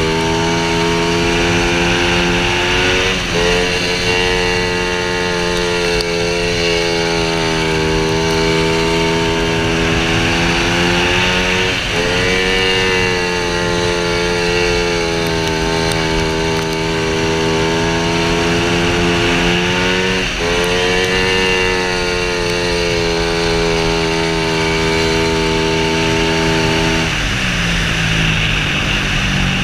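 Speedway motorcycle engine running hard through laps of a dirt track, with a steady rushing noise underneath. The engine note rises three times, about every eight or nine seconds, as the throttle is opened, and drops away when it is closed near the end.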